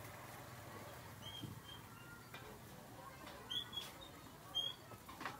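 A small bird chirping: short high chirps, a few times and sharpest in the second half, with faint knocks.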